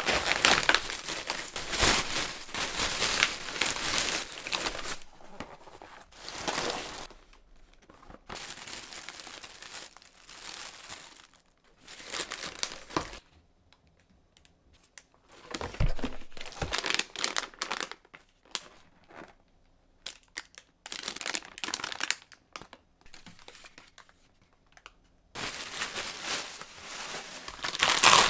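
Plastic grocery bag crinkling and rustling in irregular bursts as packaged food is lifted out of it, with quieter pauses between. Near the end, a plastic food packet crinkles as it is handled.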